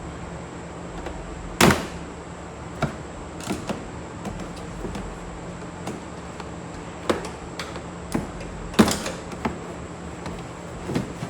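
Scattered knocks and clicks, about ten at uneven intervals, the two loudest near two seconds in and about nine seconds in, over a steady hum.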